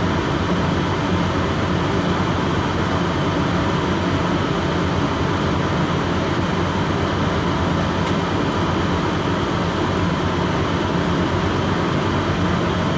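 A boat's engine running steadily: a constant low hum under a loud, even mechanical noise.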